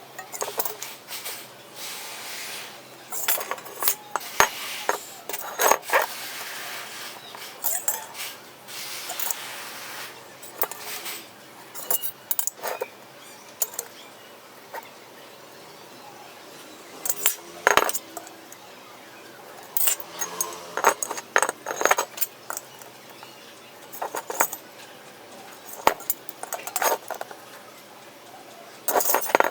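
Irregular metallic clinks and knocks from steel box bar and hand tools being handled and set down, with a few short scrapes.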